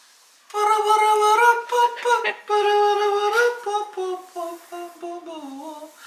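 A woman humming a wordless tune at a fairly high pitch, with held notes and slides between them.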